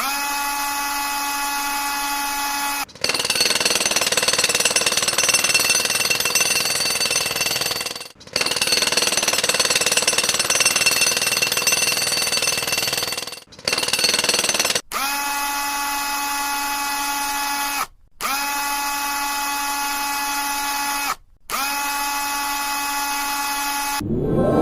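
Power tools heard in a string of short clips: a steady, even-pitched motor whine like a drill running, alternating with longer, harsher and noisier power-tool stretches, each clip cut off abruptly. A rising whoosh comes in near the end.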